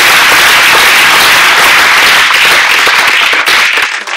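Audience applauding loudly, the clapping thinning out near the end.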